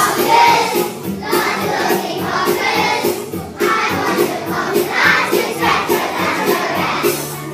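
A group of young children singing a song together in unison, with musical accompaniment.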